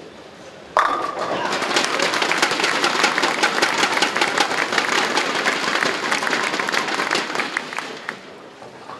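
Bowling pins crashing as the ball strikes them, under a second in, followed at once by dense clapping and cheering from the crowd, which dies away around eight seconds in.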